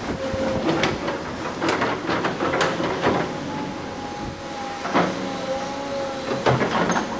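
Tracked excavator working: its engine runs with a steady whine while the boom swings and the bucket is lowered, with repeated clanks and knocks of metal and rubble.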